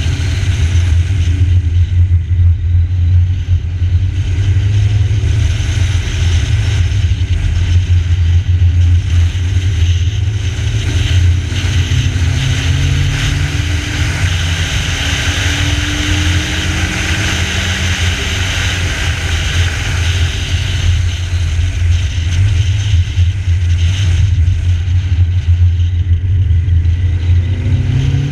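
VW Polo G40's supercharged 1.3-litre four-cylinder engine running under load as the car drives, its pitch rising in stretches as it accelerates, around the middle and again near the end. Steady wind and road noise from a camera on the bonnet runs over it.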